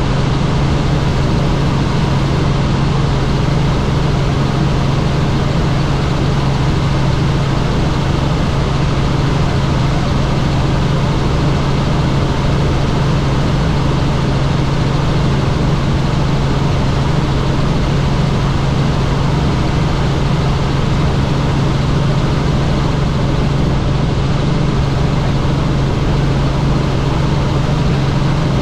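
Helicopter in flight: steady, loud rotor and engine noise with a constant low hum, unchanging throughout.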